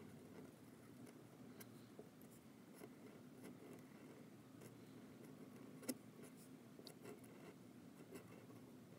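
Faint scratching of a Nikko G steel flex nib in a fountain pen drawn across paper in cursive strokes, with small ticks and one sharper click about six seconds in.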